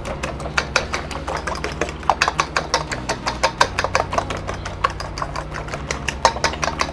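Eggs being beaten by hand with a metal utensil in a stainless steel bowl: rapid, uneven clicking and tapping of the utensil against the bowl, over a steady low hum.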